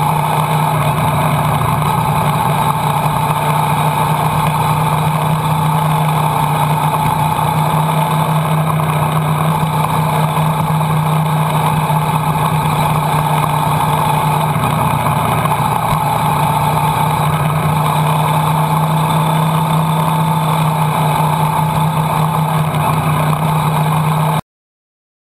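Motorcycle engine running at steady revs, heard from a camera mounted on the bike, over a haze of wind and road noise. It cuts off abruptly near the end.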